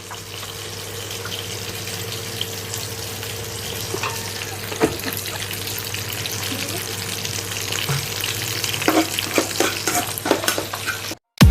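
Food sizzling in a frying pan, with a steady low hum beneath and a few sharp clicks of a utensil against the pan, more of them near the end. The sound cuts off suddenly just before the end.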